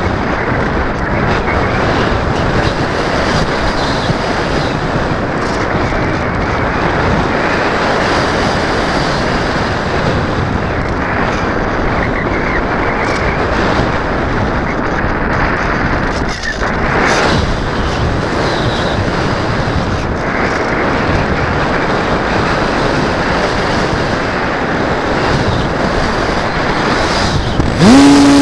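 Wind rushing over the onboard camera of a Multiplex EasyGlider Pro RC glider gliding with its motor off. Right at the end an electric motor's whine sweeps up quickly to a steady pitch.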